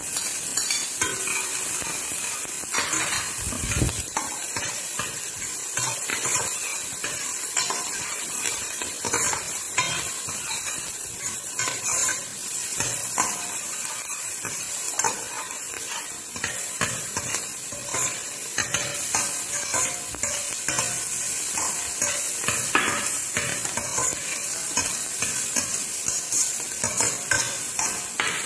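Onion and ginger sizzling in hot oil in a steel pot, with a spoon scraping and clicking against the pot as it is stirred. The sizzle is a steady hiss, broken by frequent short knocks and scrapes.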